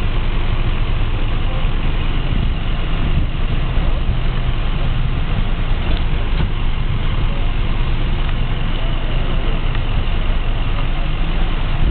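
Engines of emergency vehicles idling: a steady low rumble, with voices mixed in.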